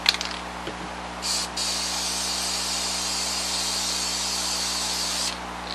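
Aerosol can of Fast Tack spray adhesive spraying onto fleece. There is a short spurt about a second in, then a steady hiss for nearly four seconds that cuts off sharply near the end. A light click comes at the start and another at the end.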